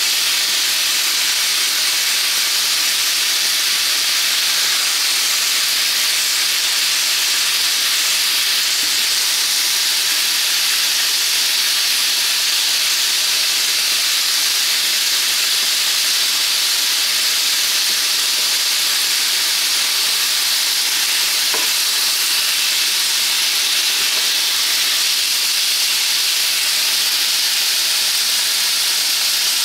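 Marinated chicken pieces sizzling steadily as they cook, an even hiss that does not let up.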